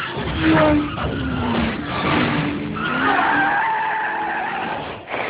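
Vehicle tyres squealing in a skid: several wavering, sliding squeals over steady noise.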